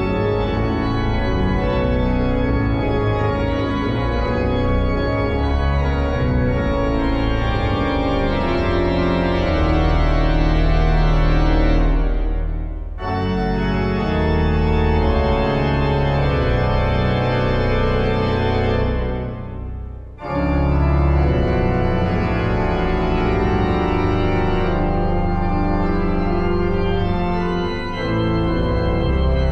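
Pipe organ playing a toccata in full, dense chords over a strong pedal bass, with the reverberant church around it. The playing breaks off briefly twice, about 13 and 20 seconds in.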